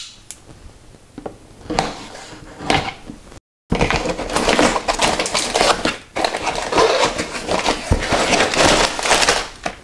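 A folding knife scratching as it slits the tape seals on a cardboard box, a few short strokes. After a brief break, dense rustling and scraping of the cardboard box being opened and handled.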